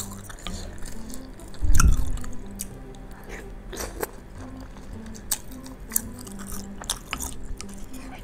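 Close-miked chewing of bakso (Indonesian meatball soup), with wet mouth clicks and a louder low thump about two seconds in, over soft background music.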